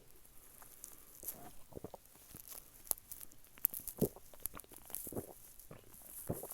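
Close-up sipping and swallowing of Dr Pepper soda: quiet, scattered small clicks and short mouth noises, with a few stronger ones about a second in and again around four and five seconds.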